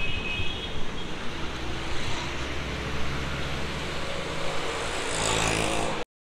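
Road traffic: auto-rickshaws and other vehicles passing, with a steady low engine hum through the middle. The sound cuts off abruptly near the end.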